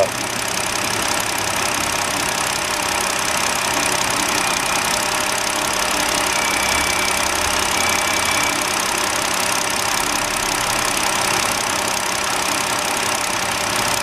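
2009 BMW 5 Series engine idling steadily at about 660 rpm. It has an intermittent misfire on cylinder 3, caused by a failing ignition coil.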